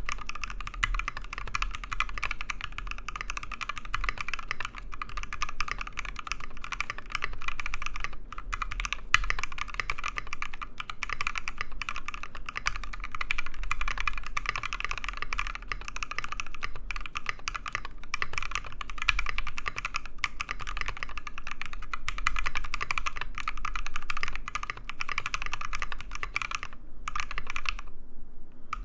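Typing sound test on a custom KBDfans Tofu mechanical keyboard with lubed and filmed Gateron Black Ink V2 linear switches, lubed GMK screw-in stabilizers and PBT XDA-profile keycaps: fast, continuous keystrokes, with a couple of brief pauses near the end.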